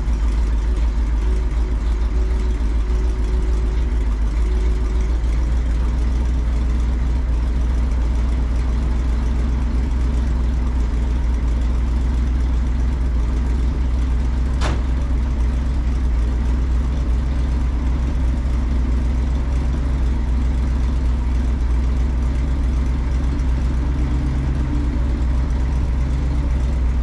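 The V8 engine of an International Loadstar CO-1700 cab-over truck idling steadily, with a single sharp click about halfway through.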